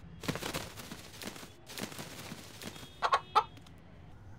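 Pet rooster clucking twice in quick succession about three seconds in, after a stretch of faint rustling.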